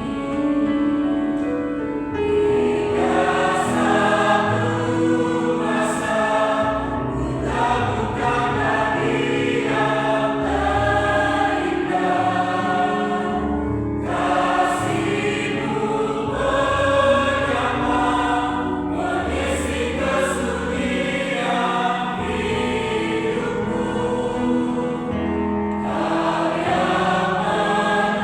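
A choir of school teachers and staff singing, with held notes that change pitch about every second.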